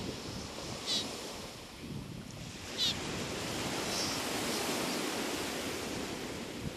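Surf and wind noise on the microphone, broken by two short, harsh, high calls from Galapagos mockingbirds, about a second in and just before three seconds in, with a fainter call shortly after.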